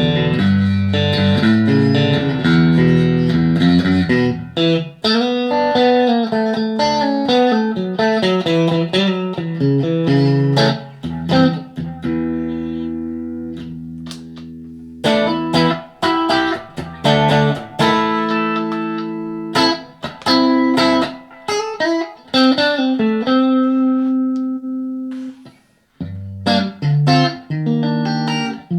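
Electric guitar played through a Blackstar ID:Core 40 combo amp: strummed chords and quick single-note runs, with a few chords left ringing and a brief stop near the end.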